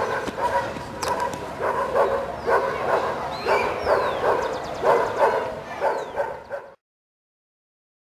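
Dogs barking over and over, in short barks about one or two a second. The sound cuts off suddenly near the end.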